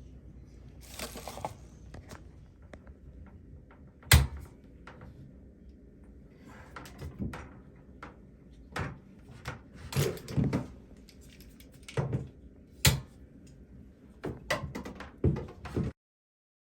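Shower head kit parts and packaging being handled: irregular knocks, clicks and rustling, with two sharp knocks standing out about 4 and 13 seconds in. The sound cuts off abruptly near the end.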